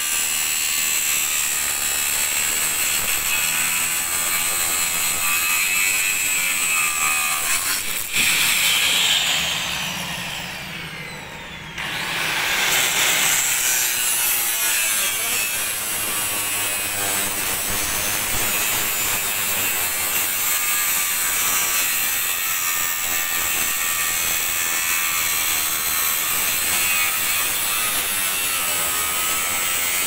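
Handheld electric angle grinder cutting through steel T-bars, a steady high metallic grinding whine. About eight seconds in the sound falls in pitch and dies down, then the grinder comes back up to full speed about four seconds later and keeps cutting.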